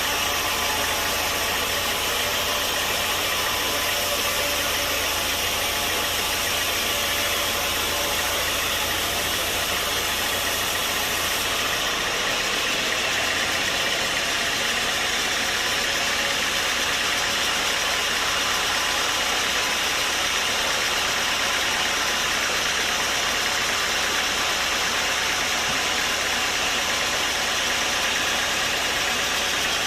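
Sawmill machinery running steadily with an engine-like drone and a hiss. The sound shifts slightly about twelve seconds in.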